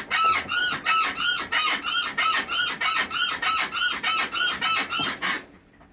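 Stels 850 Guepard quad's A-arm bushings squeaking in a fast, even rhythm as the suspension is rocked up and down, about three to four squeaks a second, each rising and falling in pitch, stopping suddenly near the end. The squeak and creak of the A-arm bushings is a fault on this nearly new machine at about 500 km, sounding like an old rusty metal bed.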